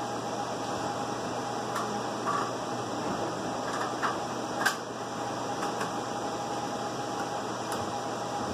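Steady fan hum of equipment with a faint steady tone, over which come a few light metallic clicks and one sharper knock about four and a half seconds in as the sheet-metal casing of a UPS battery module is handled.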